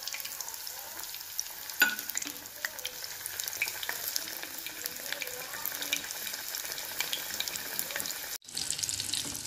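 Breaded chicken patties deep-frying in hot oil in a kadhai: a steady sizzle with small crackling pops. A single sharp knock comes about two seconds in, and the sound breaks off for a moment near the end.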